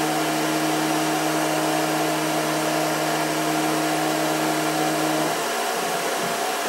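Denford Orac CNC lathe running, its spindle motor giving a steady whirring hum, with a steady whine from the axis drive as the carriage feeds slowly along the bed. The whine stops about five seconds in, when the program steps to its next move.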